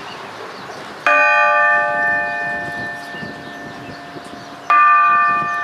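Large bronze church bell struck twice by hand, its clapper swung against the rim. Each stroke rings on and fades slowly. The strikes come about three and a half seconds apart, the second a little louder.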